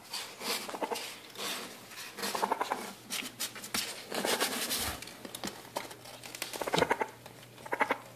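Baby raccoons chittering in several short bursts of rapid clicks, as they crawl about on cardboard and towels.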